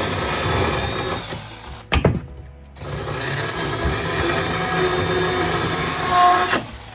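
Small handheld power saw running and cutting, stopping about two seconds in with a sharp knock, then starting again and running for about four seconds before stopping near the end.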